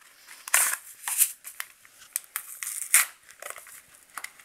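A box of Rit powder dye being opened by gloved hands: a string of short, sharp paper and cardboard rustles and tearing sounds, the loudest about half a second, a second and three seconds in.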